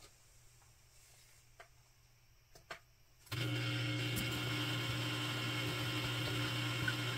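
Small water pump of an electrospray aeroponics system switching on suddenly about three seconds in and running with a steady hum, the cycle timer's short on-burst that feeds water to the spray needle. A few faint ticks come before it starts.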